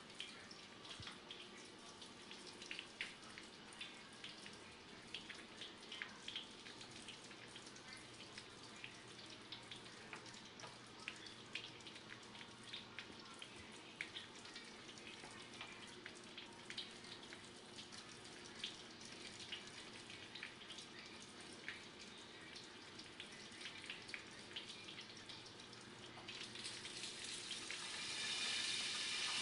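Chicken pieces frying faintly in a pan of oil: sparse light pops and crackles over a soft hiss, the oil barely sizzling, so that it doesn't sound like it's really cooking. Near the end the sizzle picks up and grows louder.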